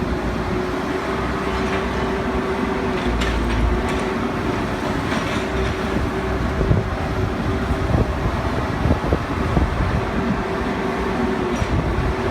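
Hydraulic excavator working: its diesel engine runs steadily under a constant whine, with scattered clanks and knocks from the bucket and debris.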